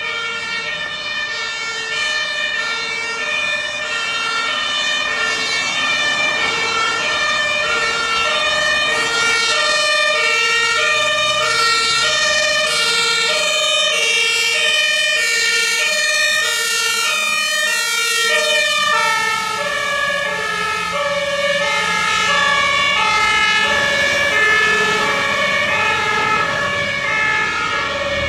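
German two-tone emergency sirens (Martinshorn) sounding together, several alternating high-low horns overlapping out of step. About 19 seconds in, their pitch drops a little, and a low engine hum swells and fades around the middle.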